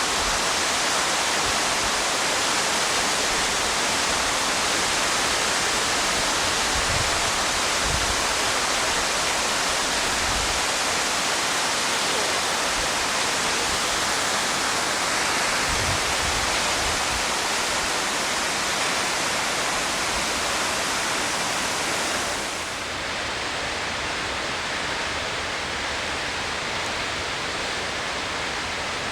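Steady rush of a large waterfall, falling water heard as an even hiss. About three-quarters of the way through it steps down a little in level and turns duller.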